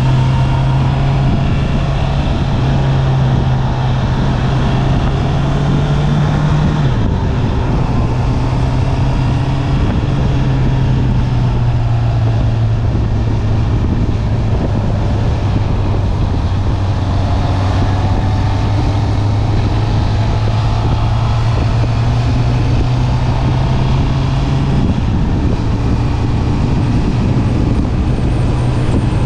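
Honda CB650R's inline-four engine on its stock exhaust, running at steady road revs. The pitch climbs slowly, drops sharply about seven seconds in with an upshift, holds steady, then jumps back up a few seconds before the end.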